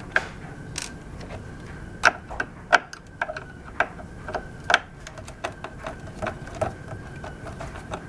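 Irregular clicks and taps of a hand screwdriver backing screws out of a hoverboard's plastic shell, a few sharper clicks standing out among them.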